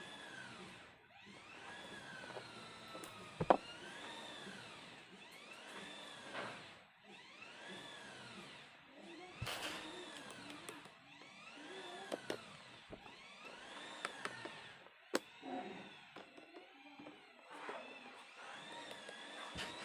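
A small motor whining, its pitch rising and falling again and again about every two seconds, with a few sharp clicks.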